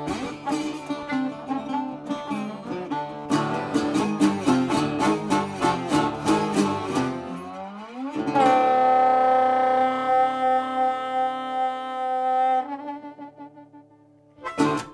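Blues ending on a metal-bodied resonator guitar with harmonica: fast strumming for about seven seconds, then the music slides upward into a long held chord that breaks off about twelve seconds in and rings away, and a last short strum just before the end.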